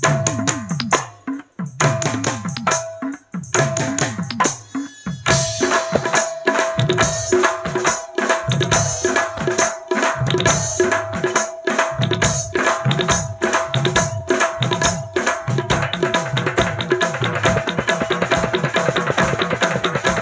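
Live band playing an instrumental interlude: rapid hand-drum strokes with deep notes that bend downward in pitch, over a long held keyboard note. The fuller band comes in about five seconds in.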